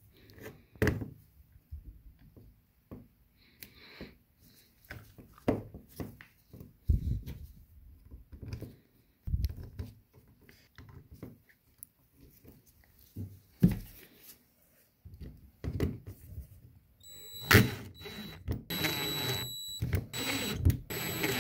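Small valve parts and a plastic cover clicking and knocking as they are handled and fitted together on a metal bench, then near the end a cordless drill whining in short spurts as it drives the cover screws into the rebuilt Haldex tractor protection valve.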